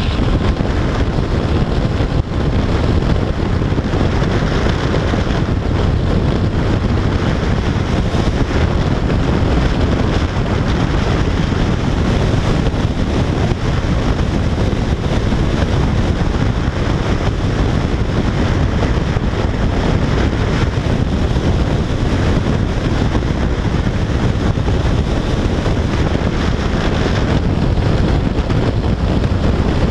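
Steady wind rush on the camera microphone mixed with a Yamaha FJR1300AE motorcycle's inline-four engine and tyre noise, cruising at motorway speed.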